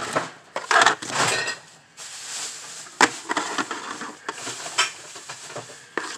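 Hands rummaging through loose junk in a plastic tote: irregular rustling and shuffling, with a few sharp clacks of hard objects knocking together, about three seconds in, near five seconds and just before the end.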